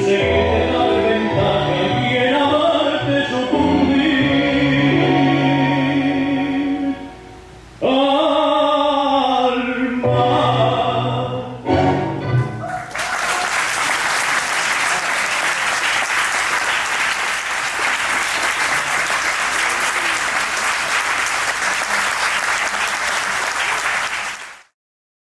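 Last bars of a sung tango recording, a voice over an orchestra, ending a little before halfway. Audience applause follows for about eleven seconds, then cuts off abruptly.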